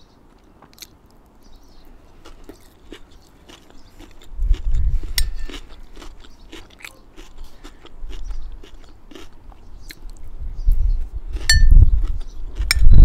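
Close-mic eating: crunching and chewing of a rice bowl with fried pita chips, with many small mouth clicks. There are two short ringing clinks, about five seconds in and near the end, and two stretches of loud low rumble on the microphone, around four to five seconds in and again near the end.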